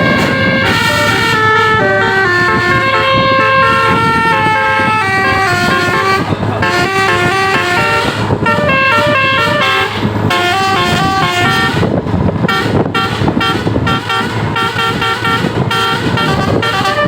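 Bus's Basuri telolet multi-tone air horn playing a melody of stepped notes, longer held notes at first and quick short ones in the second half, with the bus's engine running underneath.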